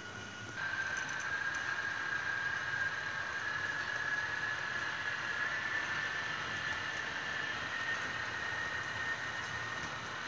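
Steady high-pitched whine of a small electric motor on an HO-scale model layout, getting louder about half a second in and then creeping slowly up in pitch, over a faint running hiss.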